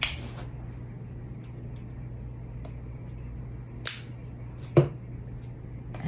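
Sharp clicks from handling a plastic squeeze bottle of acrylic paint, two of them about a second apart near the end, the second the louder, over a steady low hum.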